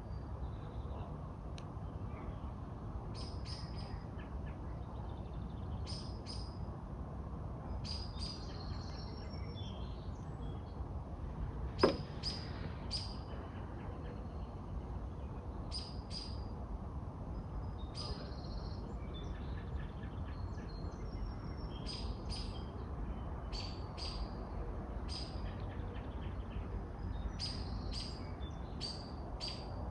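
Backyard songbirds chirping: short high chirps, one every second or two, over a steady low background noise. A single sharp click about twelve seconds in stands out as the loudest sound.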